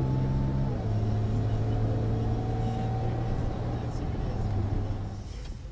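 Audi SQ5 with a Milltek aftermarket exhaust, heard from inside the cabin while cruising: a steady low engine and exhaust drone. Its pitch steps down a little about a second in, and it fades near the end.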